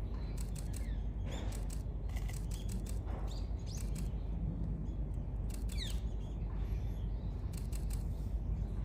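Outdoor background with a steady low rumble, scattered short clicks and a few bird chirps, one falling chirp about six seconds in.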